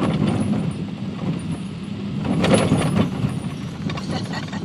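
Road noise inside a vehicle driving a rough dirt road: a steady low rumble with loose things rattling and knocking, swelling into a louder jolt of clatter about two and a half seconds in.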